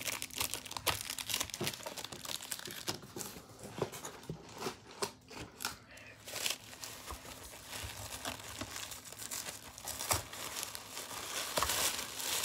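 Gift wrapping being unwrapped by hand: irregular crinkling and rustling with some tearing, sparser for a few seconds in the middle.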